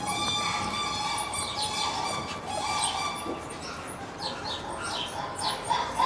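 Small birds chirping and twittering: many short, high calls, each sliding down in pitch, all through. A steady whistling tone runs underneath through about the first half.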